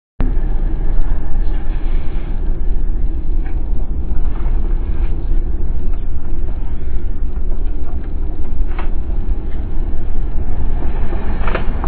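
Steady low rumble of road and engine noise heard inside a moving car.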